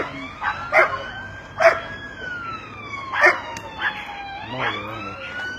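An emergency-vehicle siren wailing, its pitch slowly rising, falling and rising again, while a dog barks in short single barks about five times.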